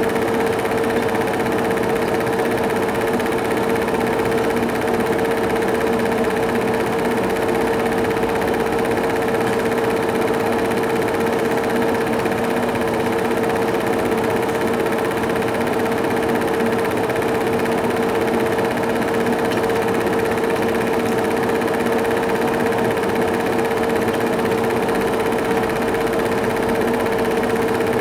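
Film projector running: a steady motor hum with the even whirr and clatter of the film mechanism.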